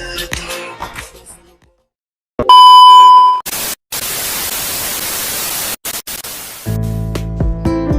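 A song fades out into silence. Then a loud electronic beep, one steady tone lasting about a second, gives way to about three seconds of static hiss with a few brief dropouts. Strummed guitar music starts near the end.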